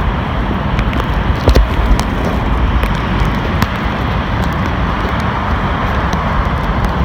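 Stormy wind buffeting the phone's microphone, with the noise of heavy surf beneath it and a few sharp knocks.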